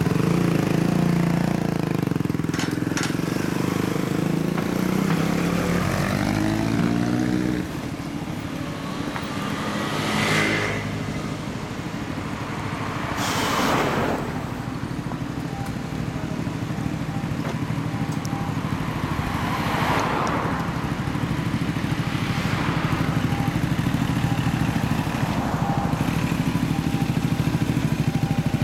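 2011 Yamaha YZF-R125's single-cylinder four-stroke engine with a Leo Vince L SBK exhaust idling, then revving up with a rising pitch about six to seven seconds in. Later, motorcycle engines idle steadily while three vehicles rush past.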